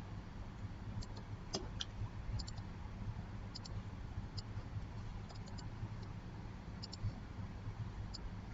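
Computer mouse clicking, a dozen or so sharp clicks at irregular intervals, some in quick pairs, over a low steady hum.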